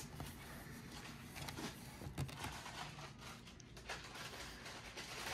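Low steady room hum with faint soft handling noises and a few small clicks as a soft-bun barbecue sandwich is squeezed and bitten into.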